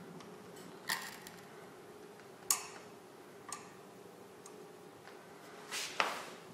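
Glass hydrometer clinking against the inside of a glass measuring cylinder as it is lowered into the alcohol and let go to float for a reading: four light clicks, the loudest about two and a half and six seconds in, each with a short glassy ring.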